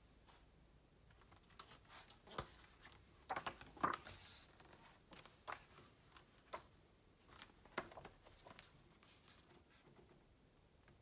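Faint rustles and soft clicks of a hardback photo book's silk-paper pages being turned and handled, loudest about four seconds in.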